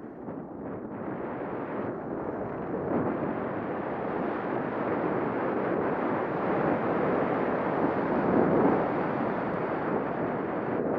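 Wind buffeting a skier's helmet-mounted Contour ROAM action camera microphone during a downhill run: a steady rushing noise with no tones, growing louder over the first few seconds and strongest a little before the end.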